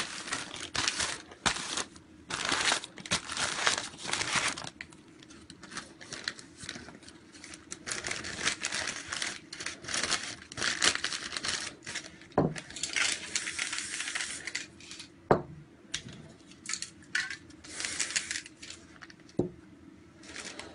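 A sheet of paper crinkling and rustling in quick bursts as it is handled over the wet spray-painted board, with a few longer hisses later and several sharp knocks, the loudest about two-thirds of the way in.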